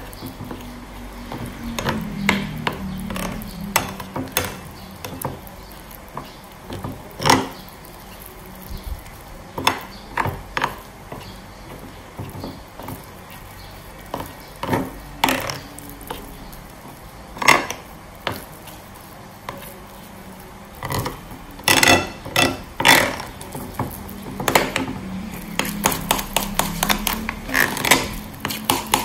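Metal fork stirring flour batter in a ridged glass bowl, clinking against the glass at irregular intervals, then beating quickly with rapid clinks near the end.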